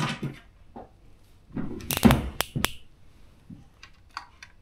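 Handling noise: a cluster of sharp clicks and knocks about two seconds in, then a few fainter taps near the end.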